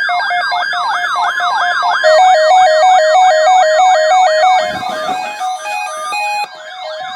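Weather alert radios alarming for a severe thunderstorm watch, several electronic alarm tones sounding at once. A siren-like sweep rises over and over, about three times a second, over a pulsing high-low beep, and more stepped beeping joins about two seconds in.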